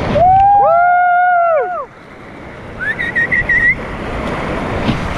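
Whitewater rapids rushing, with two long, high-pitched calls overlapping over the first second and a half, each rising, holding and falling away. A short warbling whistle follows near the middle.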